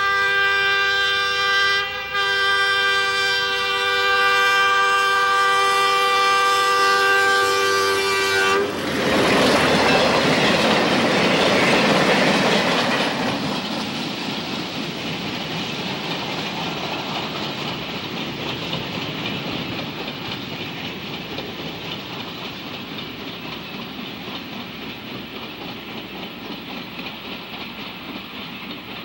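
Canadian Pacific diesel locomotive's multi-chime air horn blowing, with a short break about two seconds in, then one long blast that stops about eight and a half seconds in. The freight train then rolls past with a loud rush of rail noise that slowly fades.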